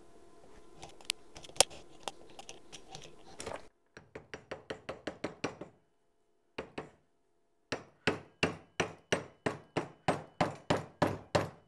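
Small hammer tapping on steel. It starts with a few center-punch strikes peening an undersized shaft to take up its play, then a quick run of taps. After a short pause comes a long, even run of taps, about three or four a second, as the bearing plate is tapped onto the shaft.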